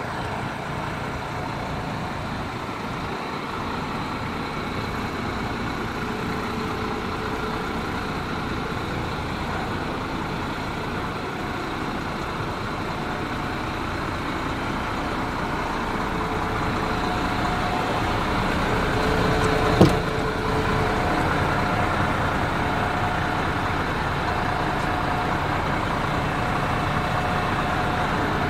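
MAN 18.430 truck's diesel engine idling steadily. A single sharp click about twenty seconds in is the loudest moment.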